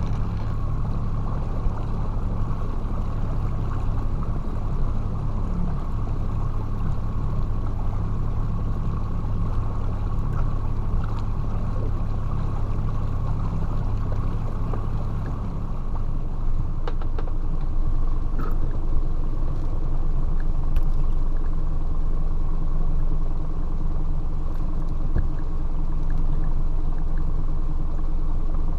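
Motorboat engine running steadily at slow trolling speed, a continuous drone whose tone shifts slightly about halfway through.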